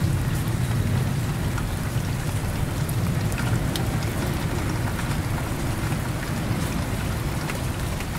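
Heavy rain falling steadily, with scattered sharp drop ticks. A low rumble of thunder dies away over the first couple of seconds.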